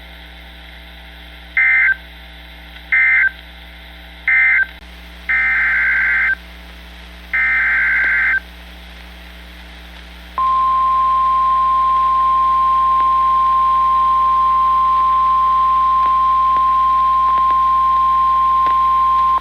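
NOAA Weather Radio Emergency Alert System tones. First come three short, rasping bursts of SAME digital data, the end-of-message code closing the previous alert, then two longer SAME header bursts. About halfway through, the steady 1050 Hz weather radio warning alarm tone starts and holds, announcing a new warning.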